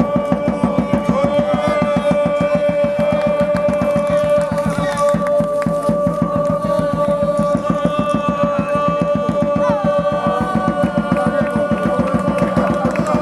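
Music: a fast, even drumbeat under a long held note.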